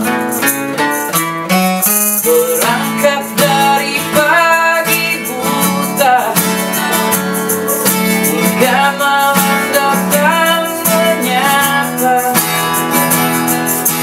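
Acoustic band playing live: acoustic guitars strummed in a steady rhythm, with a male lead voice singing, coming in about two and a half seconds in.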